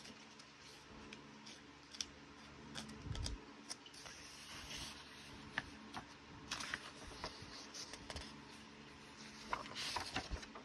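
Paper pages of a coloring book being handled and turned by hand: soft rustles and light taps, with a louder page-turn rustle near the end.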